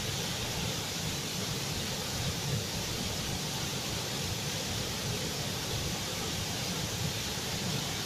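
Wide curtain waterfall pouring into its pool: a steady, even rush of falling water.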